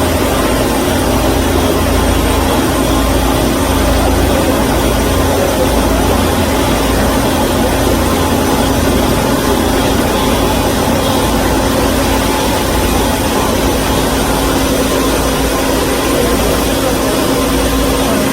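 KOTEC Diamond-1000T high-speed industrial band saw running on test, a loud steady machine hum with a faint high whine above it.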